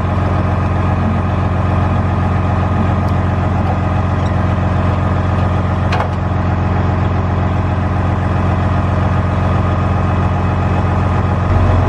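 A vehicle engine running steadily at an unchanging speed, with a light click about six seconds in and a shift in the engine note near the end.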